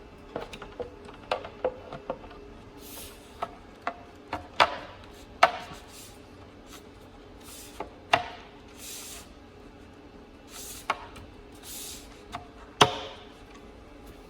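Sharp knocks and clicks of ACM sign panels being set against a wall and snapped down onto MBS Button Fix button-cleat mounts, with short scraping rubs as the panels slide into place. The four loudest knocks come about 4.6, 5.4, 8 and 13 seconds in.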